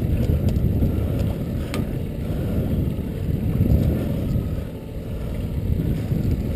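Wind rumbling on the microphone of a camera mounted on a small fishing boat: a low, unsteady rumble with one sharp click a little under two seconds in.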